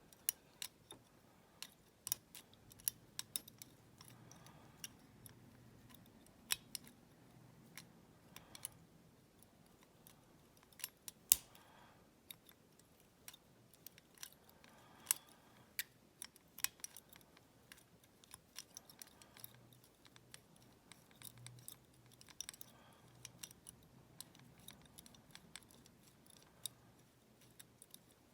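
Irregular light metallic clicks and small scrapes of a pick wire and tension tool working the levers of a five-lever padlock, one sharper click about eleven seconds in.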